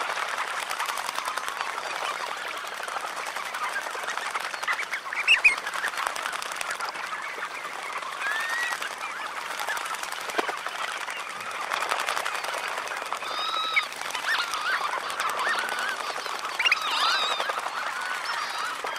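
A large flock of red knot bathing: a dense, steady chatter of many calls mixed with splashing. Louder single calls cut through about five seconds in, and again around thirteen and seventeen seconds in.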